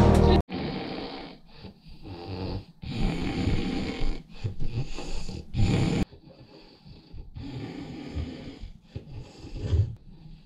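Music cuts off about half a second in; then a man snoring in his sleep, a run of long, rasping breaths one after another.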